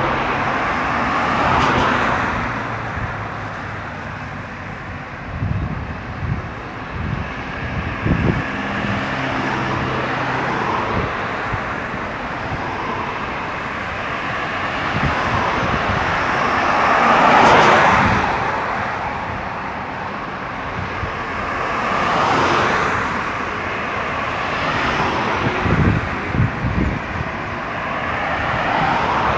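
Highway traffic passing by: vehicles swell up and fade away one after another over steady road noise, four times most clearly. A few short low thuds come in twice.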